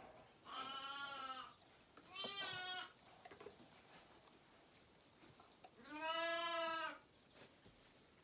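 Zwartbles lambs bleating: three separate calls about a second long each, the last one the loudest.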